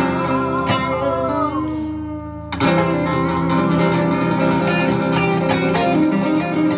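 Acoustic guitar and electric guitar playing together live. Held notes fade out about two seconds in, then a chord is struck sharply about half a second later and both guitars play on.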